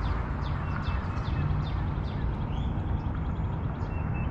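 Small birds chirping in quick repeated notes, with a thin steady tone near the end, over a steady low rumble.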